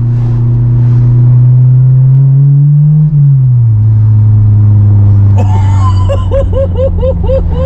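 A Honda S2000's four-cylinder engine droning through a Skunk2 MegaPower cat-back exhaust, heard inside the cabin while driving. The revs climb and then fall sharply about three seconds in, and the drone settles lower. Near the end someone laughs over it.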